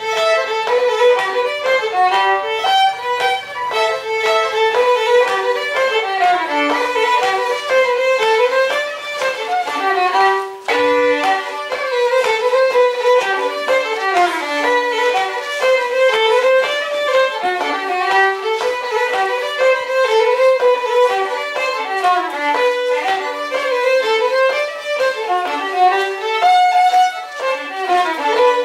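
Folk dance tune played on fiddle, a fast-moving melody of quick notes, with a brief break about eleven seconds in.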